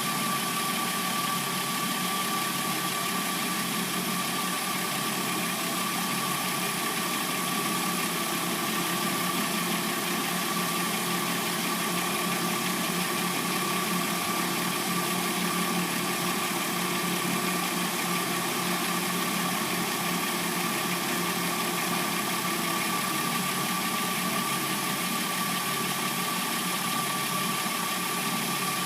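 Hyundai Sonata replacement engine idling steadily while warming up after a cold start, with a steady high whine over the engine sound.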